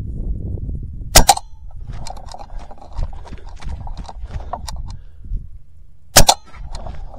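Two shots from an Edgun Leshiy 2 PCP air rifle in .25 calibre with a 450 mm barrel, each a sharp crack, the first about a second in and the second about five seconds later. Between them come quick footsteps on dirt.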